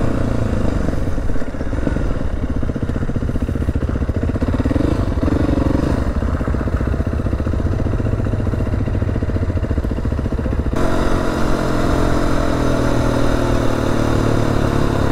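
Adventure motorcycle engine running steadily while being ridden along a dirt road. About eleven seconds in the sound suddenly turns brighter and hissier.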